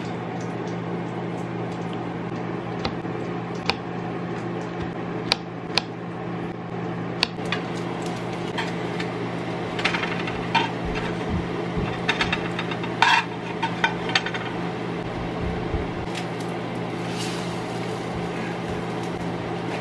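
Kitchen utensils clinking and knocking against a frying pan and dishes now and then, busiest and loudest in the second half, over a steady hum from a running kitchen fan.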